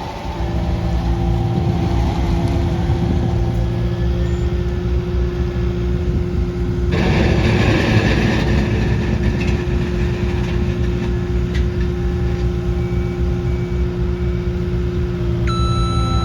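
Skid steer loader's engine running steadily, with a louder rush of noise starting about seven seconds in and easing off over a few seconds.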